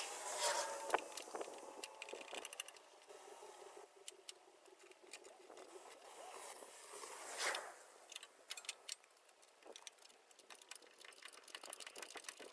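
Faint scattered clicks and knocks of hand work at a Takeuchi mini excavator's open engine bay, coming thicker near the end.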